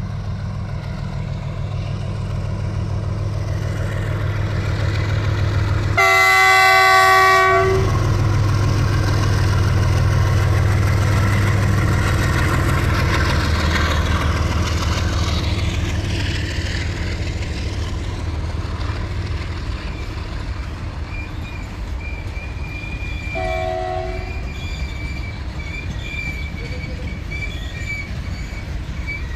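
A GE WDG-4G diesel-electric freight locomotive, with a 12-cylinder GEVO engine, draws near and passes, its low engine drone swelling and then fading as the wagons roll by. A long multi-tone horn blast sounds about six seconds in, and a short horn toot comes near the end. In the last third a thin, steady high tone rides over the passing wagons.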